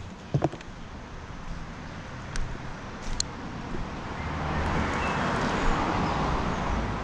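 A car passing: its tyre and engine noise swells over a few seconds, then starts to fade near the end. A few light clicks come before it.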